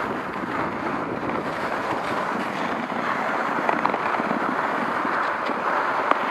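Skis sliding and scraping over packed snow at speed, mixed with wind rushing over the microphone, as one steady noise with a couple of faint ticks.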